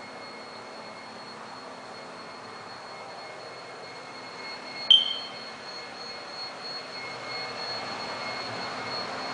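Steady hiss of room noise with a faint high-pitched whine, broken about five seconds in by one sharp click with a brief ring.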